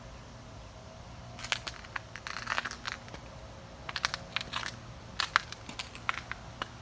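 Irregular crunching and crackling clicks from the person filming as they move around the bicycle, coming in clusters over a steady low hum.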